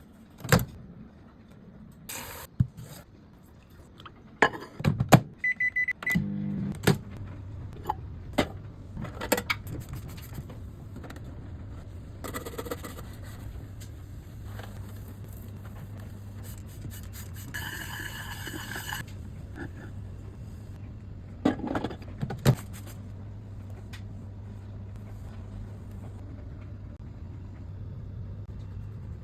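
Microwave oven being loaded and started: clattering of dishes and the door, a short keypad beep, then the oven running with a steady low hum, with a few more knocks and clicks while it runs.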